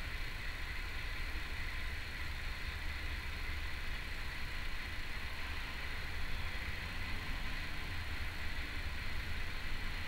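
Steady background noise: a low hum under an even hiss with a faint high steady tone. No parrot calls.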